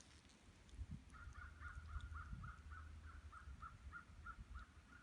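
Faint bird calling: an even run of short, high notes about four a second, starting about a second in, over a low rumble of outdoor background.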